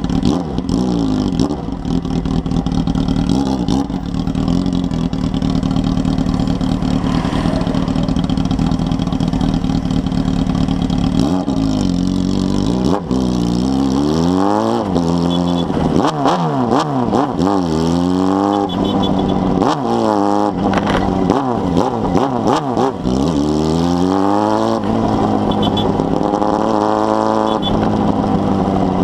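Honda Hornet's inline-four engine through a 4-into-1 exhaust, running steadily at first, then revving up and dropping back again and again through gear changes in the second half.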